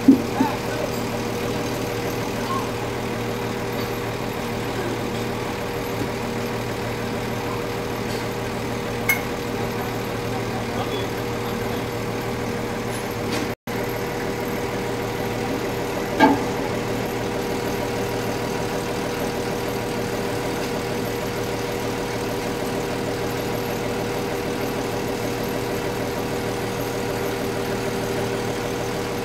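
A large forklift's engine idling steadily, with a couple of short knocks about a third and halfway through.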